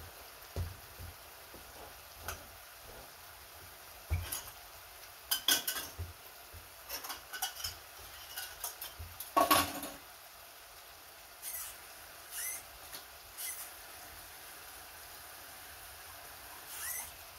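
Cooking utensils clinking, knocking and scraping against pots and pans on the stove in scattered, irregular strokes. The loudest clatter comes about halfway through, with a few short scrapes afterwards.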